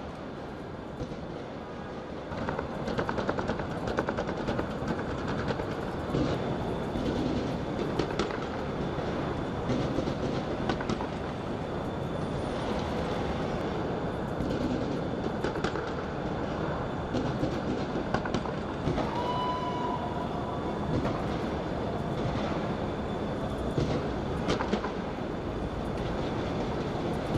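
Fireworks going off in a long, continuous barrage: dense crackling studded with sharp pops, with a brief whistling tone about two-thirds of the way through.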